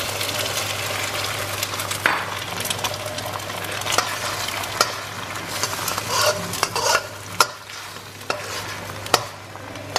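Beaten eggs sizzling in hot oil in a wok, the sizzle slowly easing as the egg sets. A metal spatula scrapes and taps against the wok now and then.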